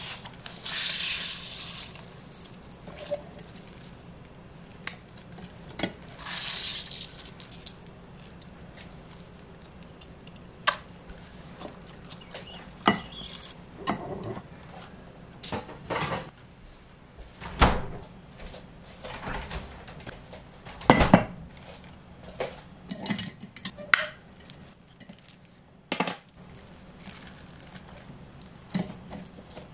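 Kitchen handling sounds as a cloth bundle of yogurt is squeezed over a stainless steel steamer basket in a glass bowl and a weighted pan is set on top: two stretches of rustling hiss in the first eight seconds, then scattered sharp knocks and clinks of metal and glass.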